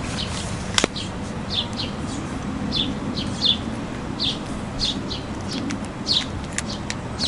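Small birds chirping over and over, short falling chirps a couple of times a second, with a few sharp clicks.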